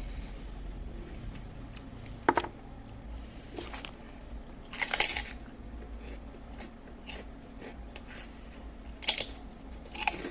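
A person eating seblak close to the microphone, chewing and biting, with four sharp clicks or short bursts spread through it.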